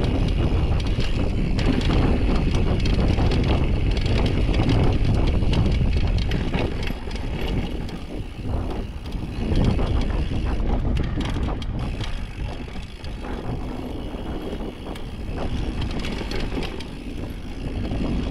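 Downhill mountain bike rolling fast down a dirt trail: tyres running over dirt and loose stones, with the bike clattering and clicking over bumps and wind rushing on the microphone. Somewhat quieter after about seven seconds.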